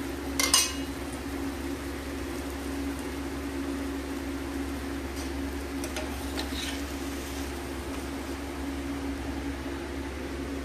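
A metal spatula clatters sharply against a tawa griddle about half a second in, then scrapes faintly a few times as it slides under the jaggery pancakes, over a steady low hum.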